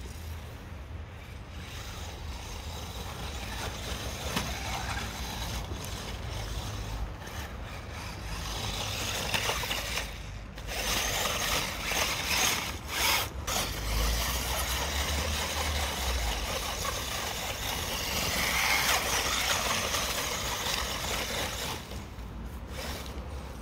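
Dry fallen leaves rustling and crunching as a WLToys 12427/12428 RC truck drives through them and the person filming walks after it. It grows louder and busier from about a third of the way in.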